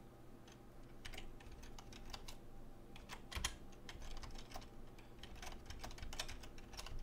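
Typing on a computer keyboard: faint, unevenly spaced keystrokes as a line of code is entered.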